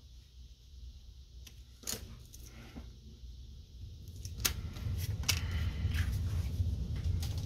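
Paper and cardstock being handled and shifted on a cutting mat, with light clicks and rustles. Sparse at first, busier and louder in the second half.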